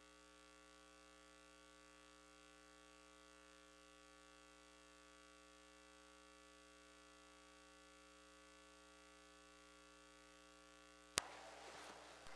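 Near silence with a faint, steady electrical hum; a single sharp click about eleven seconds in, followed by faint room noise.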